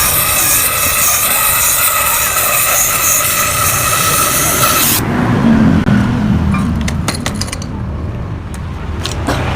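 A steady, high-pitched mechanical whine that cuts off abruptly about five seconds in. A low rumble and a few sharp metallic clicks follow.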